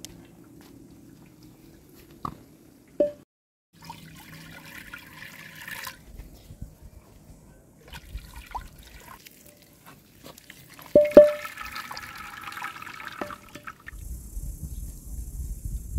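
Water and cooked rice poured from a pot into an aluminium colander and draining, followed by metal clanks as pots are handled, the loudest a ringing double clang about eleven seconds in. A low rumble comes in near the end.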